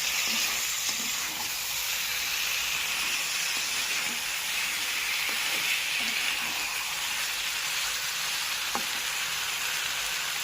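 Chicken pieces frying in hot oil, a steady sizzle, with a few light knocks of a utensil stirring in the pan.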